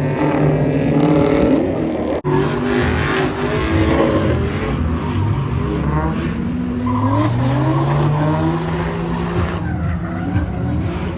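Holden VY Commodore's Ecotec V6 engine revving up and down hard while drifting, with tyres squealing and skidding. The sound breaks off briefly about two seconds in, then carries on with a long rising rev near the middle.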